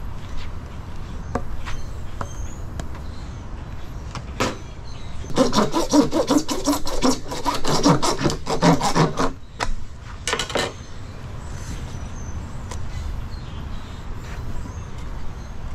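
Hand saw cutting through PVC pipe with quick back-and-forth strokes for about four seconds near the middle, then a short second run of strokes about a second later.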